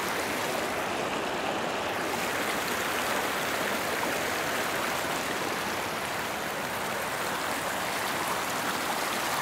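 Small mountain stream running fast over rocks, close to the water: a steady, even rush with no breaks.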